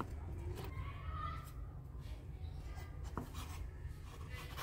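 Kitchen knife chopping soaked wood ear mushroom on a wooden cutting board: a few spaced knife taps, with the blade and a hand scraping the chopped pieces together.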